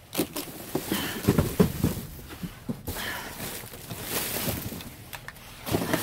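Loose plastic wrap and cardboard boxes rustling and crinkling as a reach-extender grabber tool digs through them in a dumpster, with irregular clicks and knocks.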